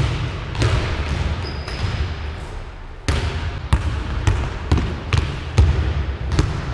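Basketball being dribbled on a hardwood gym floor: sharp bounces about two a second, each ringing on in the hall's echo, with a pause of about two seconds a second in.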